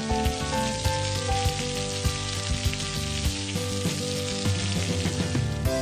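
Meat and shrimp sizzling on a hot grill plate, an even frying hiss that cuts off suddenly near the end, over background music.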